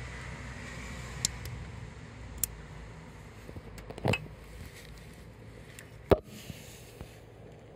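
Metal tools and parts being handled during wiring repair: four sharp clicks and knocks spaced over several seconds, the one about four seconds in a longer clank, over a faint low hum.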